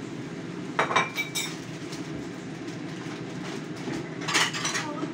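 Dishes and metal utensils clinking against each other, a few short strikes about a second in, one ringing briefly, and another cluster near the end, over a steady low hum.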